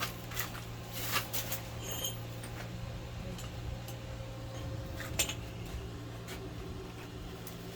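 Gasless (flux-core) MIG welding on a Hyundai HG200 3-in-1 welder: a steady electrical hum with scattered sharp spatter crackles and pops, the strongest about five seconds in. The hum stops just after the end as the bead finishes.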